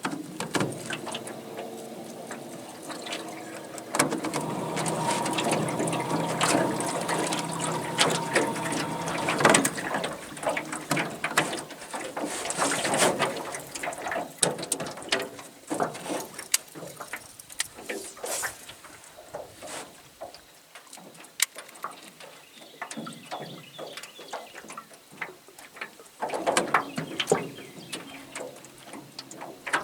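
Boat motor running steadily for about the first ten seconds, then stopping, and running again briefly near the end, with water splashing and lapping at the hull throughout.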